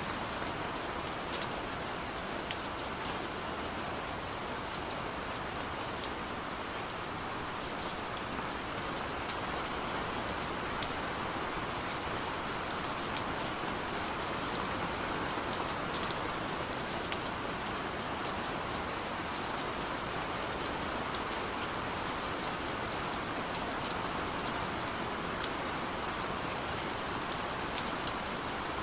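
Steady gentle rain falling, an even hiss with scattered sharp drop ticks.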